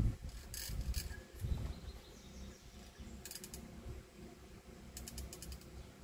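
Small metal and plastic parts of a vacuum cleaner motor clicking and rattling as they are handled and fitted together by hand. The clicks come in scattered groups, with a quick run of fine ticks about five seconds in.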